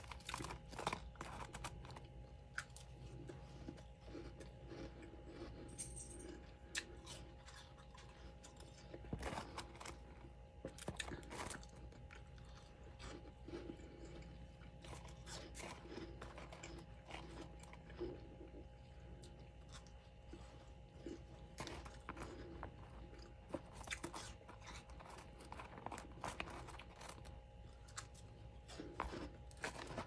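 Soft, scattered crunches of powdery freezer frost, recorded quietly, over a faint steady hum.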